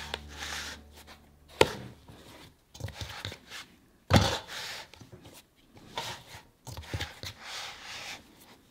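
Bread dough being kneaded by hand in a metal mixing bowl: irregular squishing and rubbing, with a sharp slap about a second and a half in and a heavier thump about four seconds in.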